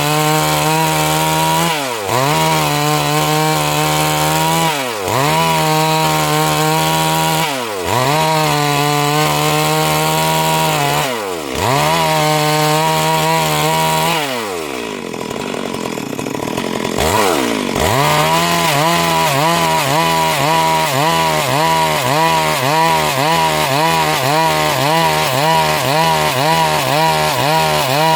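Stihl MS 382 two-stroke chainsaw running at high revs while sawing Siris wood, its pitch dropping and recovering every three seconds or so. About halfway through it eases off to low revs for a couple of seconds, then revs back up and runs on with a quick wavering pitch.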